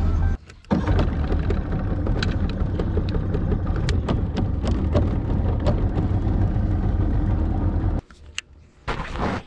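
A boat's outboard motor running as the boat travels across the lake: a steady low rumble with scattered clicks and knocks. It stops abruptly about eight seconds in.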